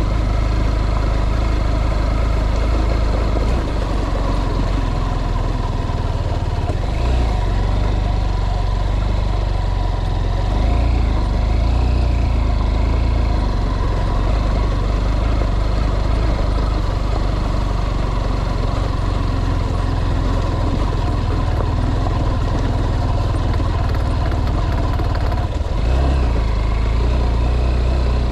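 Motor vehicle running steadily: a loud, continuous low engine rumble with road noise on top.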